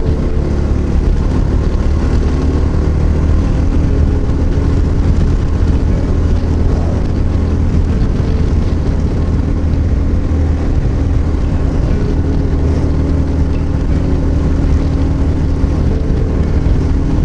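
Yamaha XT660Z Ténéré's single-cylinder engine running steadily at highway cruising speed, about 110 km/h, mixed with heavy wind rush from riding into a strong wind.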